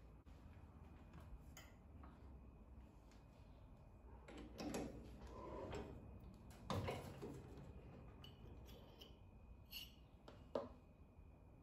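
Quiet metallic clinks, knocks and rattles of handling a stopped metal lathe: the chuck guard swung up and a T-handled chuck key fitted and turned to loosen the chuck jaws around the steel workpiece. A few louder clattering knocks stand out, the sharpest near the end.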